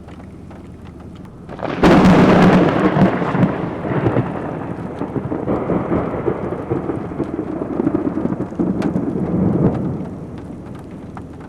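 Thunder from a very close lightning strike: a sudden sharp crack about two seconds in, then a long rolling rumble that swells again near the end before fading, over steady rain.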